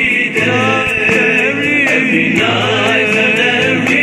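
An Islamic nasheed sung by voices in chorus, played back through a repaired Samsung earbud.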